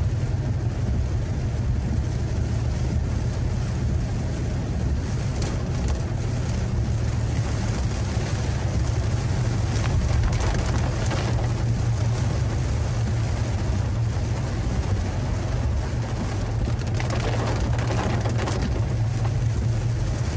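Car driving along a road: a steady low rumble of engine and tyres with a hiss above it that swells twice, about ten and about seventeen seconds in.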